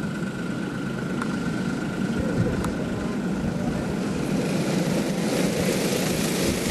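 A pack of LO206 and clone racing karts, their small single-cylinder four-stroke engines running together in a dense drone that grows louder and brighter about five seconds in.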